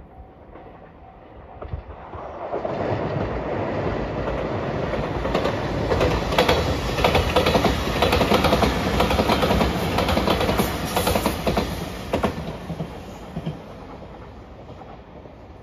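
JR Shikoku 8000 series electric limited express train passing at speed: a rushing roar that builds from about two seconds in, is loudest through the middle with a rapid run of wheel clicks, then fades away near the end.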